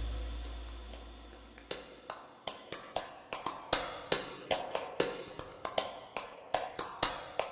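Ticking countdown sound effect: sharp, dry ticks about two to three a second, some in quick pairs, while a music cue fades out in the first second or so.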